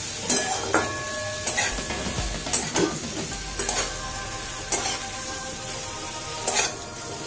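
Paneer cubes and bell pepper pieces sizzling as they fry in a metal kadhai, with a spatula stirring and scraping them against the pan in repeated strokes.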